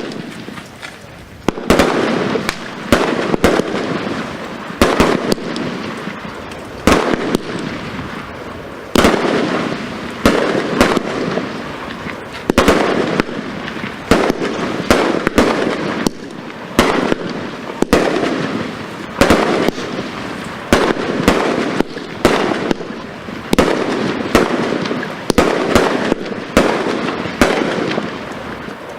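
Stienen 'Metal Hammer' 1513 firework cake firing: a long run of sharp bangs, roughly one to two a second and sometimes in quick clusters, each followed by a fading rush of noise.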